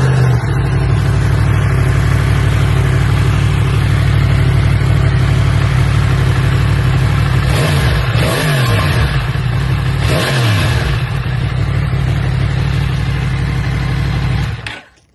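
Yamaha MT-10's CP4 crossplane inline-four running on its stock exhaust: a steady idle with two short revs of the throttle, about 8 and 10 seconds in, then the engine is switched off near the end.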